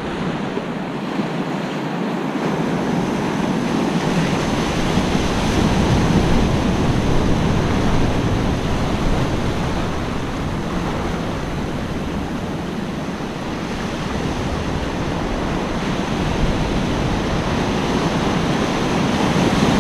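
Surf washing and breaking on a sandy beach, a steady rush of water that swells and eases, with some wind buffeting the microphone.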